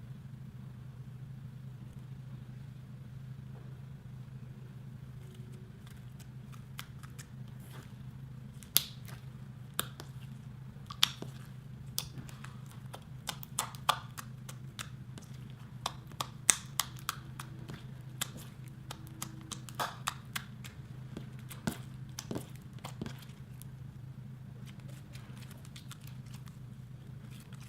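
Clear slime with gold leaf mixed in being kneaded and pressed by hand, giving off scattered sharp clicks and pops through the middle of the stretch, over a steady low hum.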